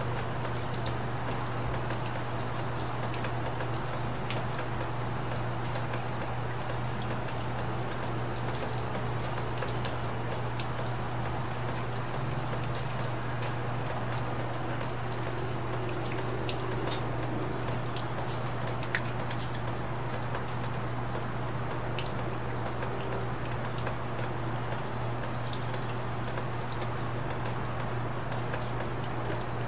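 Rain falling: a steady hiss with many light, scattered drop taps, over a constant low hum. Two louder brief knocks come about 11 and 14 seconds in.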